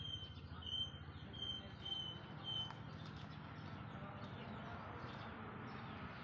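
A bird calling: five short, even high notes about half a second apart, then stopping, over faint steady outdoor noise.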